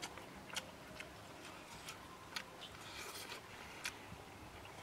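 A person eating roasted frog: irregular sharp mouth clicks and crunches from chewing, about six in the few seconds, with a brief rustle about three seconds in as the frog is pulled apart by hand.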